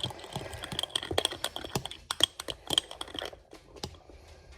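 A spoon clinking and scraping against a bowl in quick, irregular strokes as a thick mixture of shampoo, dish soap and sugar is stirred; the clinks thin out near the end.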